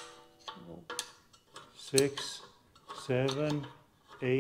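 A BMW E46's rear handbrake shoe adjusting screw being clicked back with a screwdriver through the hole in the brake disc: a few separate sharp metallic clicks, one about two seconds in ringing briefly on the disc. The screw is being backed off ten clicks from the point where the shoes bind, so the wheel turns freely again.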